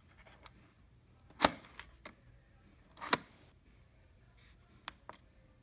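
Plastic body of a Fujifilm Instax Mini 9 instant camera being handled: two loud, sharp clicks about a second and a half apart, followed by a few fainter clicks.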